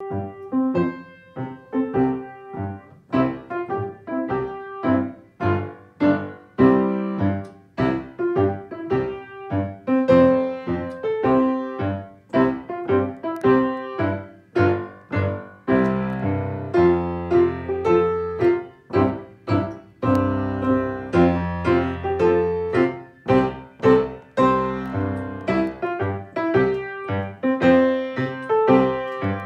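Piano playing a simple tune note by note at a steady pace, with low bass notes joining about halfway through.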